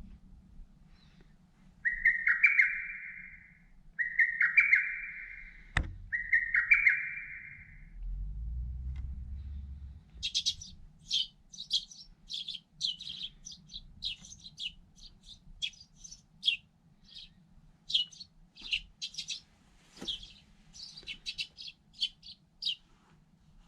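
Birds calling: three longer calls in the first few seconds, then a long run of quick, high chirps from about ten seconds in.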